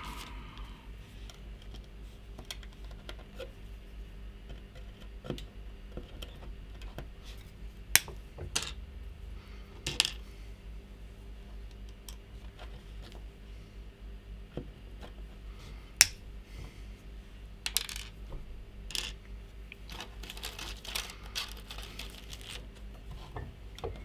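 Side cutters snipping pin header strips to length: sharp clicks every few seconds, the loudest about 8, 10 and 16 seconds in, with lighter ticks and taps of the cutters and cut pieces on the desk between.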